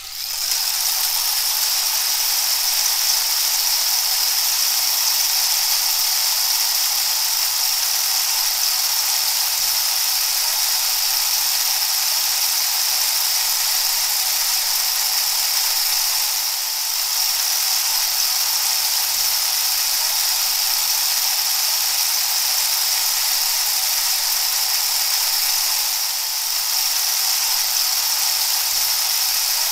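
A steady rushing hiss with no pitch, strongest in the high range, fading in at the start and dipping briefly twice.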